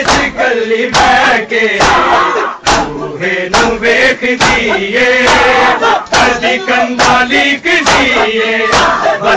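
A crowd of men chanting a noha (Muharram mourning lament) together, loud, with sharp hand slaps on bare chests (matam) keeping a beat about once a second.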